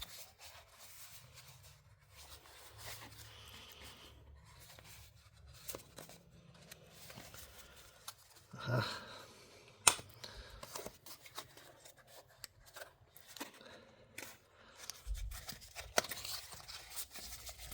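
Knife box packaging being opened and rummaged through: faint rustling, scraping and cutting sounds, with a couple of sharp clicks.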